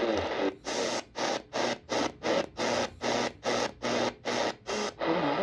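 Radiwow R-108 shortwave receiver being tuned up the 49-meter band in quick steps: about a dozen short, even bursts of static, about two and a half a second, each broken by a brief silence as the radio changes frequency. The stepping stops about five seconds in.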